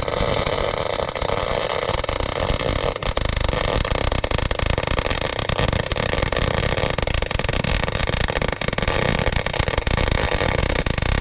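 MIG welding arc crackling and sizzling steadily through a continuous weld run, laying a bead on the steel reinforcement of an excavator's dozer-blade cylinder mount.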